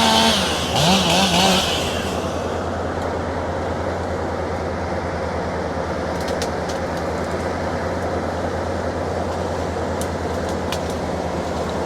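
A chainsaw revs high in a few short bursts for the first couple of seconds, then gives way to a steady low engine hum with a few faint clicks.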